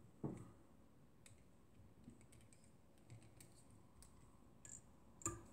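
Near silence with a few faint, short clicks: small handling sounds of fingers and tools at a fly-tying vise. The loudest click comes about a quarter second in, another near the end.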